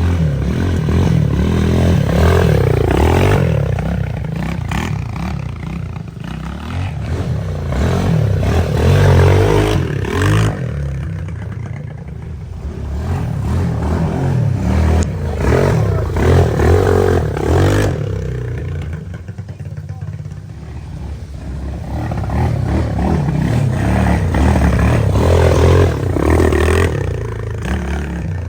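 Small off-road vehicle engine revving up and down over and over, swelling louder and fading several times as it passes back and forth.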